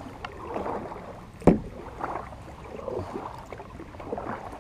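Kayak paddle strokes dipping and splashing in calm water, about one a second, with a sharp knock about one and a half seconds in.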